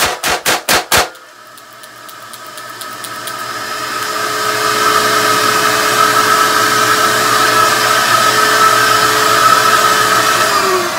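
Taurus 856 .38 Special revolver fired rapid double action into a blast box: about five shots in the first second, finishing the six-round cylinder. The bullet trap's extraction blower keeps running steadily, its level recovering over the next few seconds, and starts winding down in pitch near the end.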